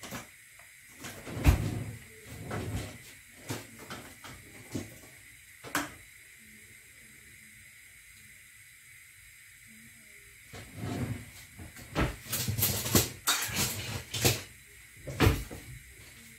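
Kitchen items being handled and set down: scattered knocks and clicks, a quiet stretch in the middle, then a busier run of clattering knocks near the end.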